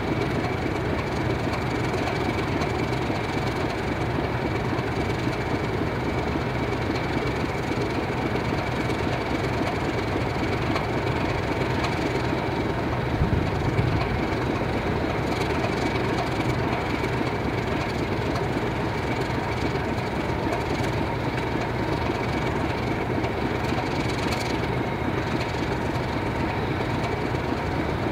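Class 31 diesel locomotive's English Electric 12SVT V12 engine idling steadily, with a brief low swell about 13 seconds in.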